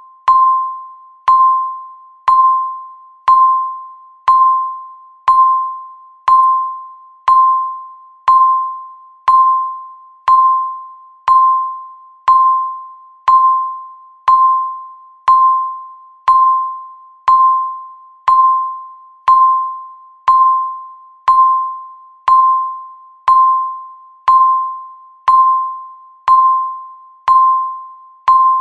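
Countdown-timer beep sounding once a second: a single pitched tone that starts sharply and fades away before the next one, repeating evenly.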